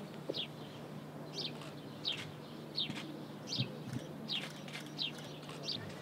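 A small bird chirping over and over: short, high, falling chirps about every 0.7 seconds, over a faint steady low hum.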